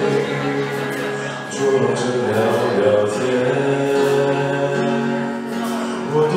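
A male voice sings through a handheld microphone, accompanied by an electronic keyboard, holding long notes.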